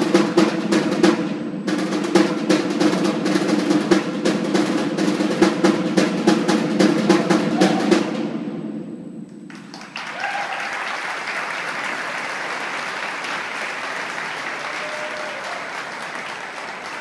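Band music with rapid snare drumming over steady sustained notes, ending about eight seconds in. After a short pause, the audience applauds steadily, and the applause fades near the end.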